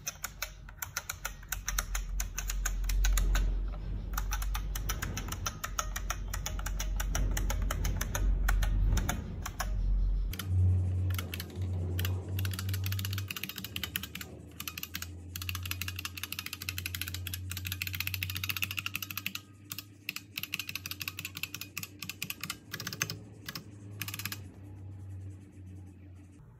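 Keys of an IBM Model F XT buckling-spring keyboard pressed in quick succession, a dense stream of sharp clicks as each key is tested. The clicking stops about two seconds before the end.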